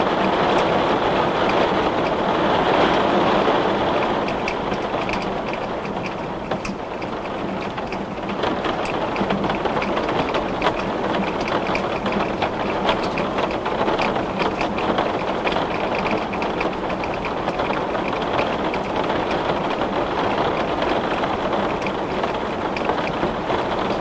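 Heavy rain falling on a glass pane: a steady hiss with many separate drop hits ticking through it, easing slightly a few seconds in.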